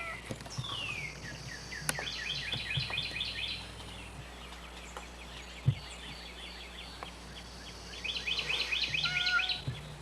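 Birds singing in two runs of quick, rapidly repeated chirps, with a cat's short meow near the end, over a steady low hum.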